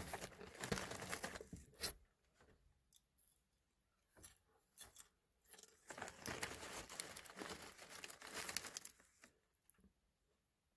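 Snack wrapper being torn open and crinkled by hand, in two spells of rustling: one at the start and a longer one from about the middle, with a few small clicks between.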